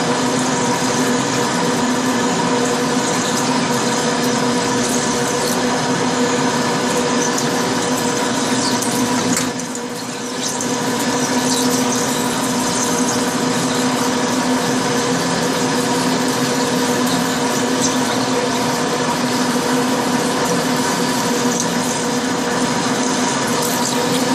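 Metal lathe turning slowly while a parting tool cuts into steel with liquid coolant flowing over the cut: a steady machine hum over a constant hiss. The level dips briefly about ten seconds in.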